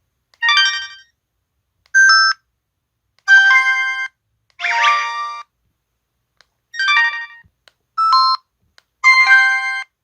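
LG-SH130 mobile phone's built-in sound effects played one after another: seven short electronic chime jingles, each under a second long, with brief silent gaps between them.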